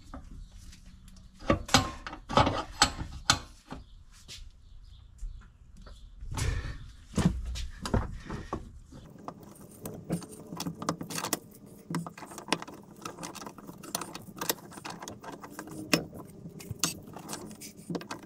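Irregular metal clinks and knocks of a suspension control arm and hand tools being worked in a bench vise, pressing a partly slipped-out bushing back into the arm. The background changes about halfway through.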